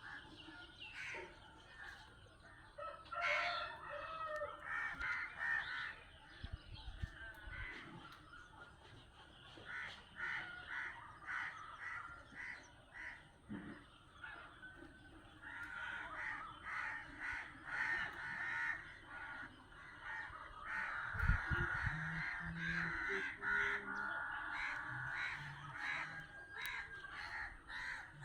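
A flock of birds at a feeding spot calling in a stream of short, harsh, repeated squawks and caws, busier in the second half. A low rumble comes in twice, about a third of the way in and again after the middle.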